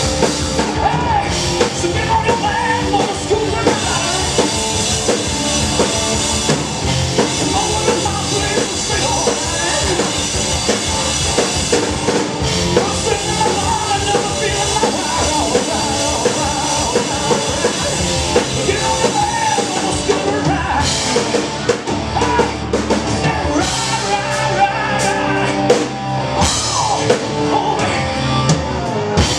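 Live rock band playing an instrumental stretch of a hard-rock song: electric guitar lines over a steady drum-kit beat.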